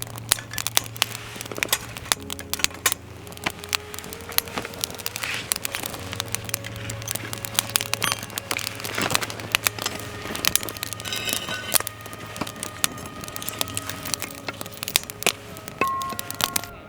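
Wood campfire crackling and popping with many irregular snaps, over soft background music.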